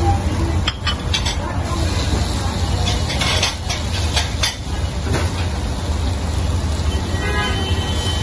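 Chicken chaap frying on a large gas-fired flat iron griddle: a steady low rumble and hiss, with a few sharp clicks and knocks.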